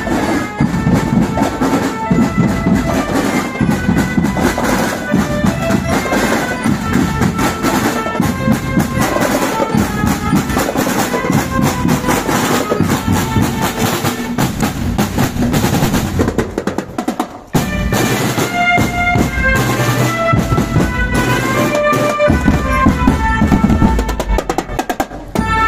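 Marching band playing on parade: snare, multi-tenor and bass drums beat a dense rhythm with drum rolls, and bell lyras ring a bright melody over them. The playing thins out briefly about two-thirds of the way through, then comes back in full.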